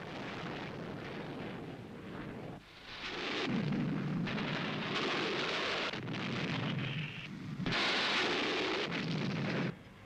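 Fighter jet engine roar in several long stretches, each broken off by an abrupt cut or dip, dropping away near the end.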